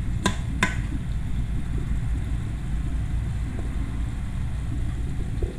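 A steady low rumble, with two sharp clicks about a third of a second apart shortly after the start.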